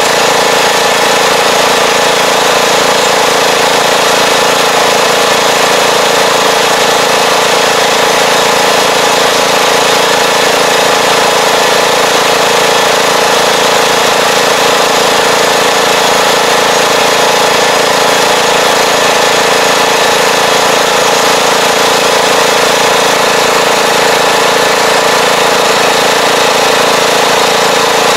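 Tractor engine running steadily, heard close up from on the machine as it pulls a fertilizer spreader across the field.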